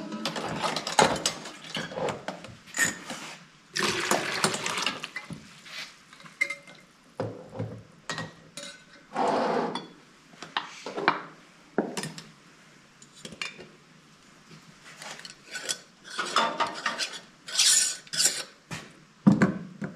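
Glass canning jars, a ladle and pots clinking and knocking as hot bone broth is ladled into jars. The sounds come as irregular bursts with sharp clinks scattered through.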